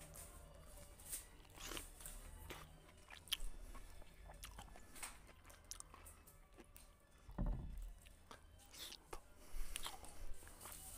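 Close-miked eating sounds: a man chewing rice and curry from his hand, with scattered wet mouth clicks and smacks and his fingers working the rice on a plate. There is a heavier low thump about seven and a half seconds in.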